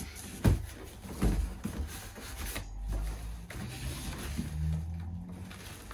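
A cardboard box knocked down once, then scraping and rumbling as it is dragged and the speaker is worked against its polystyrene packing.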